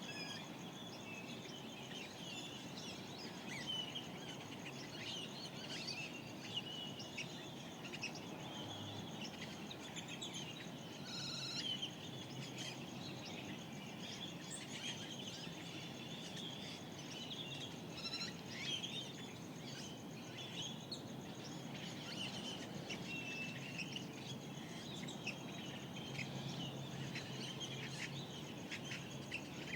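Dawn chorus of Mojave Desert birds: many overlapping short chirps and trills over a steady background hiss, with one louder call about eleven seconds in.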